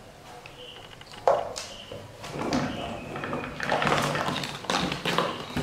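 A hard plastic toy truck knocking and clattering as a baby monkey handles it, with one sharp knock about a second in, then a run of irregular rattles and rustles.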